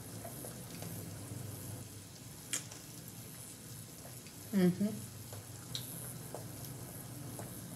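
Faint steady hiss over a low hum, broken by a couple of light clicks and a short murmur of a woman's voice just past halfway.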